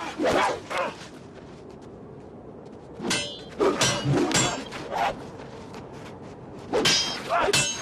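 Sword fight: quick flurries of metal blades striking each other, sharp clangs with a ringing edge, in three bursts about three seconds apart, with a low steady background noise between them.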